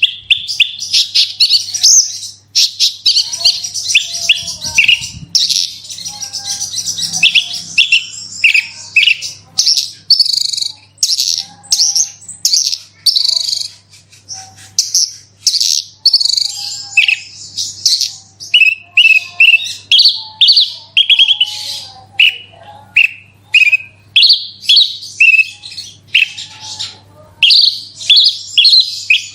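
Javan bush lark (branjangan) singing in full, vigorous song: a fast, unbroken stream of varied chirps, trills and quick up-and-down glides.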